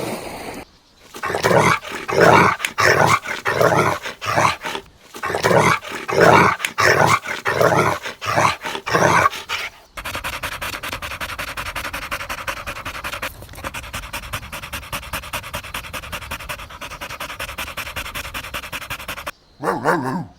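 Dog giving short pitched yelping whines, two to three a second, then from about halfway through fast, steady panting that cuts off shortly before the end.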